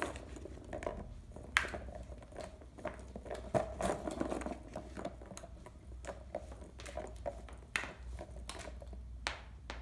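Small plastic wiffle balls being handled, tossed and caught with gloved hands: scattered light clicks and taps at irregular moments, over a faint steady low hum.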